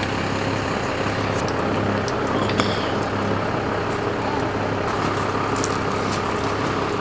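A vehicle engine idling with a steady low drone and hiss, with a few faint ticks scattered through it.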